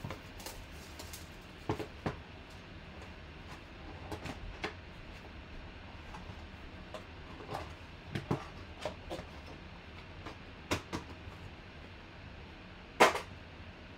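Hands opening a cardboard trading-card box and sliding out its contents: scattered light clicks, scrapes and rustles of cardboard and packaging, with one louder handling noise near the end.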